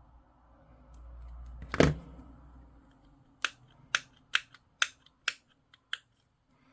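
Hobby sprue cutters snipping a plastic model part off its sprue: one loud snap about two seconds in, then a quick run of about seven sharp clicks a little under half a second apart.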